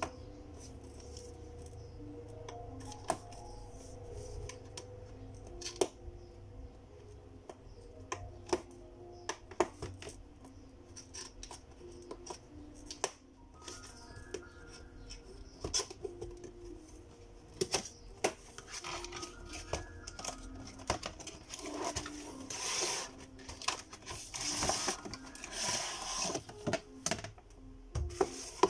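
A cardboard doll box being handled: scattered light taps and knocks on the box, then cardboard scraping and rustling over the last several seconds as the lid is slid off. Soft background music plays underneath.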